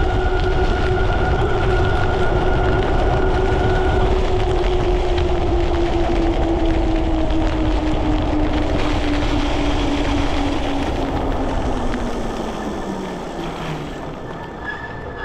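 Electric e-bike hub motor whining under heavy wind noise at speed; the whine falls steadily in pitch and the rush dies down over the last few seconds as the bike slows from about 31 mph to about 12 mph.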